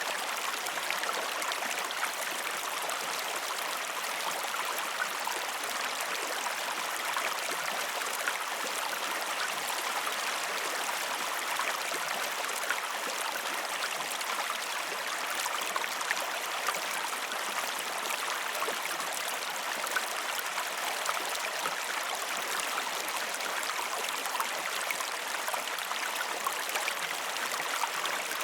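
River water flowing over rocks: a steady rush with a dense patter of small splashes and gurgles.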